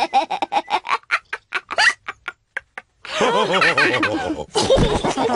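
Cartoon pig characters laughing, with a run of short, clipped sounds with gaps about a second in, then several voices laughing and snorting together from about three seconds in.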